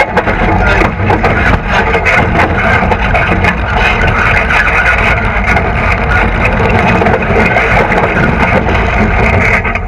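Off-road race vehicle running hard at speed: continuous loud engine noise mixed with dense rattling and clatter.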